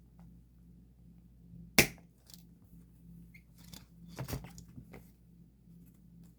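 Handling noises from sorting photocards at a desk: one sharp knock about two seconds in, the loudest sound, then several quieter clicks and rustles a couple of seconds later, over a low steady hum.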